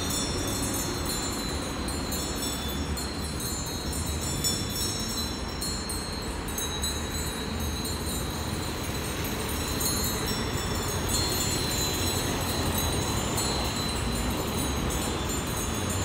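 Light, high-pitched metallic chiming, scattered and irregular throughout, over a low steady background rumble.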